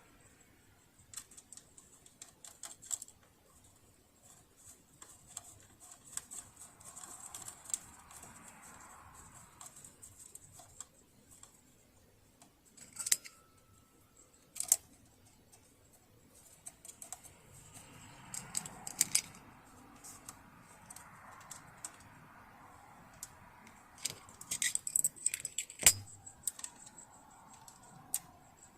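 Light metallic clicks and clinks from small tools and parts being handled while a Riccar Bernina Holidayne 1090 sewing machine is worked on, irregular and scattered, with a few sharper knocks.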